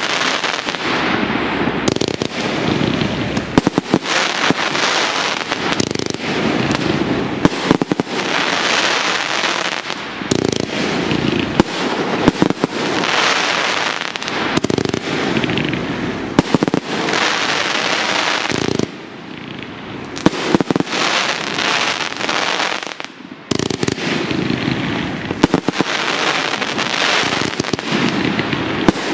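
Professional fireworks display firing at a rapid rate: a dense, continuous barrage of bangs from bursting aerial shells and comets. It eases off briefly twice, about two-thirds of the way through.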